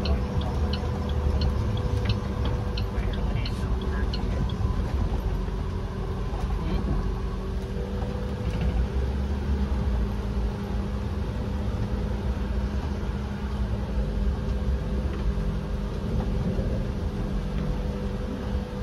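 Engine and road noise of a vehicle driving slowly, heard from inside the cab: a steady low rumble with a few held engine tones. A light regular ticking, about one and a half a second, runs for the first few seconds.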